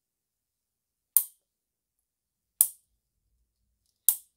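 Three sharp clicks about a second and a half apart from a 3D-printed 0.6 N·m torque-limiting tool turned on the inner bolt of the timing-chain pre-tensioning tool. Each click marks the tool reaching its set torque, the sign that the chain is pre-tensioned.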